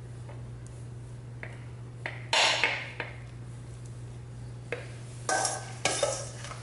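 Metal spoon scraping and clinking against a stainless steel mixing bowl while scooping out cauliflower tot mixture: small clicks, a loud scrape about two seconds in, and two more loud scrapes near the end. A steady low hum runs underneath.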